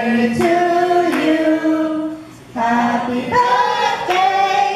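A woman singing unaccompanied, holding long notes in short phrases with a brief break about two seconds in.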